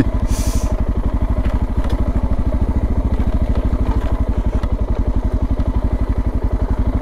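Suzuki DR650's single-cylinder engine running steadily, with an even train of firing pulses, as the bike rides along. There is a brief hiss about half a second in.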